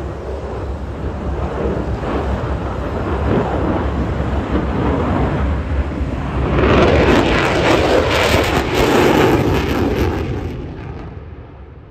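F-35A fighter's single Pratt & Whitney F135 jet engine at high power with afterburner lit during a display pass. The jet noise grows louder and harsher a little past halfway as the aircraft turns close overhead, then fades over the last two seconds as it pulls away.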